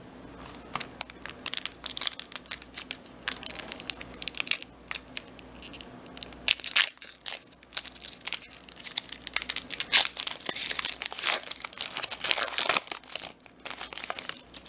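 Crinkling and tearing of a Pokémon booster pack's foil wrapper being opened by hand: irregular crackles and rustles, loudest in a few bursts through the middle and latter part.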